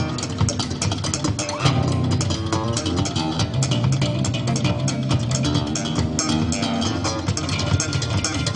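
A live band playing: electric guitars, bass guitar and a drum kit keeping a steady beat.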